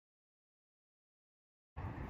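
Complete silence, then steady outdoor background noise with a low rumble cuts in abruptly near the end.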